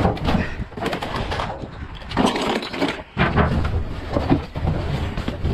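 Rummaging through junk in a dumpster: irregular rustling and clunking as boxes and metal parts are shifted and handled, loudest a couple of seconds in and again around the middle.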